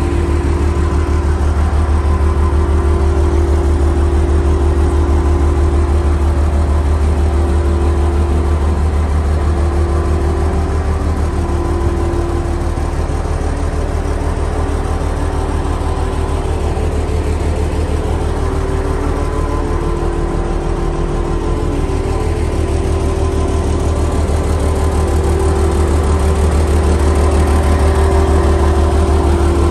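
Volvo A40E articulated dump truck's diesel engine idling steadily, a deep even hum with a steady mid-pitched whine on top.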